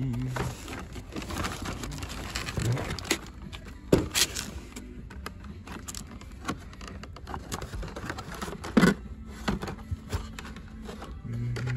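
Hot Wheels blister-pack cards and cardboard display boxes being flipped through by hand: irregular plastic clicks and card rustling, with a louder knock about four seconds in and another near nine seconds.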